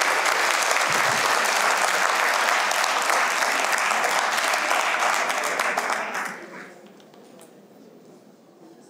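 Audience applauding, the dense clapping fading away about six seconds in.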